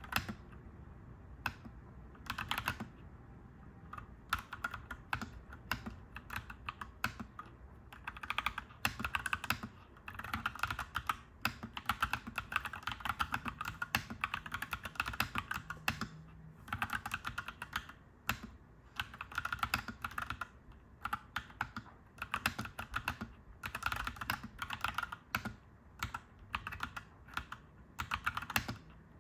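Clacky mechanical keyboard being typed on, keys clicking in quick runs with brief pauses between bursts.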